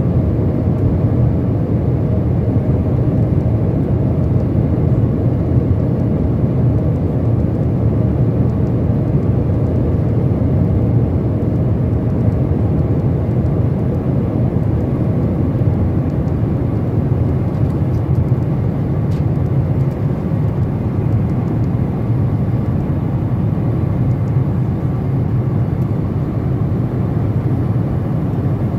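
Steady cabin noise inside a Boeing 777-236(ER) in flight: an even, low drone of the engines and the air rushing past the fuselage.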